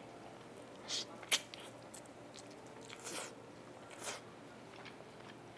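A person eating pieces of braised chicken close to a clip-on microphone: bites and chewing of tender meat. There are a few short, sharp mouth sounds, about one second in, three seconds in and four seconds in.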